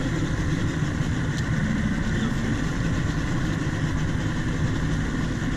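Engine running steadily, a continuous low rumble.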